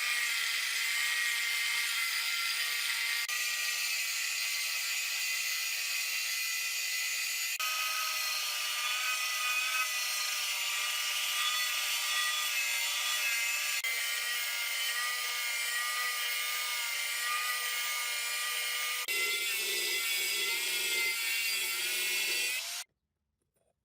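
A small high-speed power tool whining steadily as it grinds or cuts, its pitch shifting a little, with abrupt changes in sound every few seconds; it cuts off suddenly near the end.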